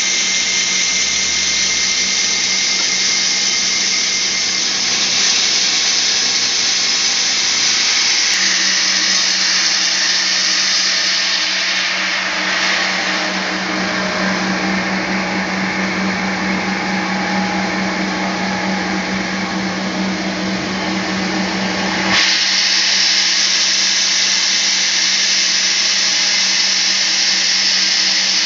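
Band sawmill running steadily through a teak log, a continuous machine noise with a steady low hum. Its sound shifts about eight seconds in, the hum growing stronger and the hiss duller, and changes back abruptly about 22 seconds in.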